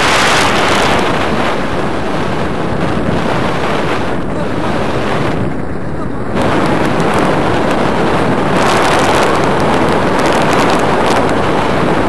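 Loud wind rushing over a handheld action camera's microphone in paraglider flight, the airflow from the glider's forward speed. It gusts unevenly, easing briefly about four seconds in and again around six seconds.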